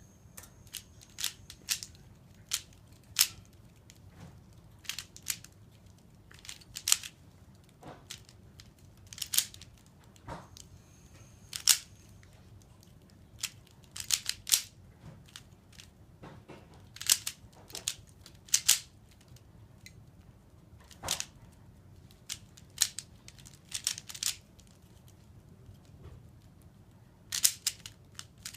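A Rubik's Cube's plastic layers being turned by hand, clacking in irregular clusters of sharp clicks with short pauses between them.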